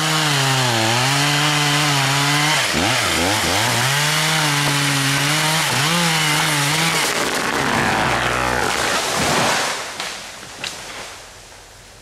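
Chainsaw running hard as it cuts into a standing tree trunk, its engine pitch dipping and recovering several times as the chain bites into the wood. About seven seconds in the engine tone gives way to a couple of seconds of harsh noise, and the sound drops away about ten seconds in.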